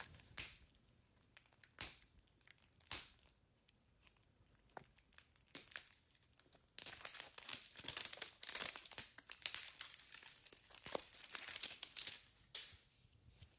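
Packaging of a toy mystery ball being crinkled and torn open by hand: scattered crackles at first, then denser, continuous crinkling from about halfway through.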